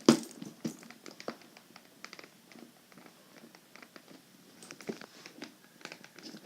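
Scattered knocks and clicks of a plastic Minion toy being handled, with one sharp knock right at the start and a few lighter ones after it.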